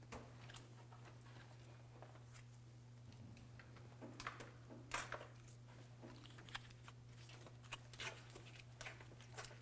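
Faint rustling and crinkling of a stiff brown paper sheet being handled and moved, with scattered light clicks that are a little stronger in the second half. A steady low hum runs underneath.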